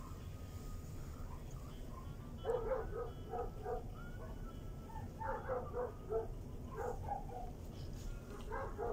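A dog barking in several quick runs of short barks, starting a couple of seconds in, over a steady low background rumble.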